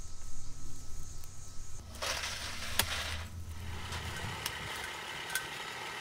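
Charcoal fire in a clay bloomery furnace burning under a forced air blast: a steady rushing hiss, with a low rumble through the first few seconds and a couple of faint clicks.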